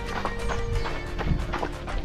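Music with held notes over a runner's footsteps thudding in a loose rhythm on a gravel trail.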